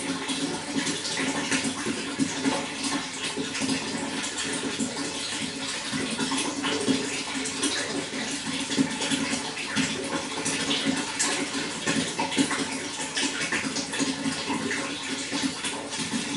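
Running water flowing steadily, a continuous rush made of many small splashes and gurgles.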